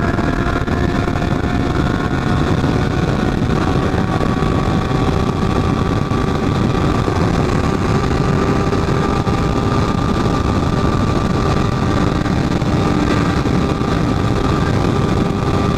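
Motorcycle engine running at a steady cruising speed, heard from onboard under a constant wind rumble.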